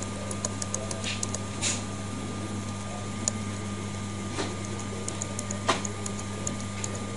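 F11 key on an LG laptop keyboard being tapped repeatedly during boot to call up the recovery: faint, irregular key clicks, a couple of them louder near the middle, over a steady low electrical hum.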